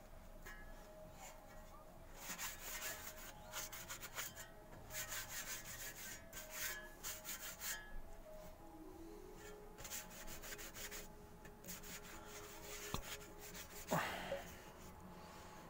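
Pink cloth pad rubbing and scrubbing a rusty steel shovel blade in quick back-and-forth strokes that come in bursts with short pauses. Near the end there is one louder sharp sound with a quickly falling pitch.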